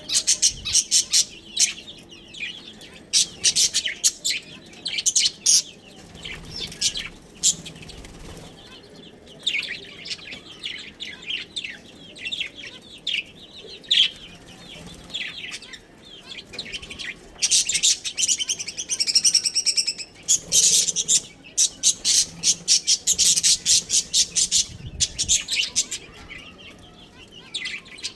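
Budgerigars chirping and chattering in rapid bursts of short high-pitched calls, with quieter lulls in between.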